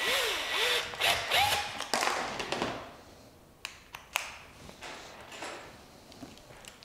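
Stainless bolts being started into the holes of an aerator intake-screen panel: scraping and rubbing with a few squeaks for about the first two and a half seconds, then a few sharp taps and clicks.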